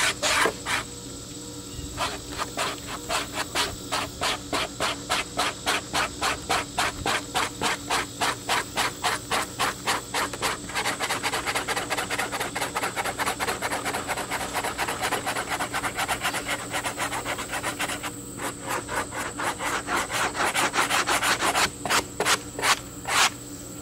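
Hand-held steel brush scrubbing old dried glue off a car headliner board in quick back-and-forth strokes, about four a second, running into denser, continuous scratching in the middle and pausing briefly a couple of times near the end.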